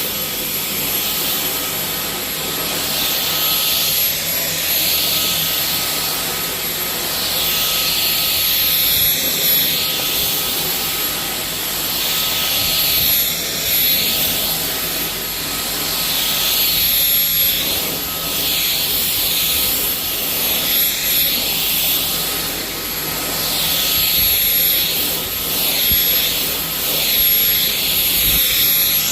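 Dyson cordless stick vacuum's motor running at a steady high-pitched whine while its floor head cleans a rug, swelling and easing every few seconds.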